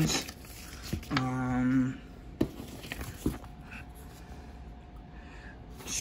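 A man's short wordless hum about a second in, then a few light clicks and rustles of paper and cardboard as a paper manual is lifted out of a box.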